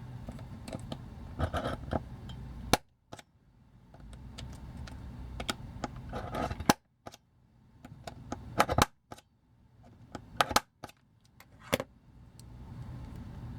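Irregular sharp metallic clicks and taps, a few of them loud, as small tools work at a stubborn metal pin in a die-cast toy.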